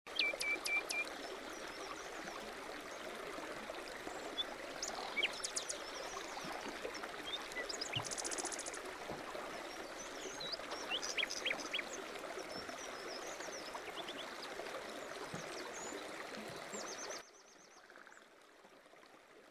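A shallow creek flowing with a steady rush, and small birds chirping and whistling throughout. The sound cuts off suddenly about two seconds before the end.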